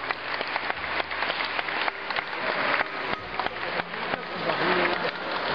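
Crowd applauding, a dense, steady patter of many hands clapping.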